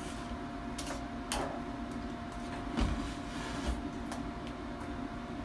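Metal tongs and a spoon clicking and scraping against a skillet, a handful of light clicks with a duller knock about three seconds in, over a steady appliance hum.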